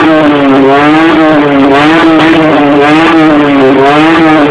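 Honda Stream's custom race muffler, very loud as the engine is held at high revs; the pitch wavers up and down about once a second as the throttle is worked.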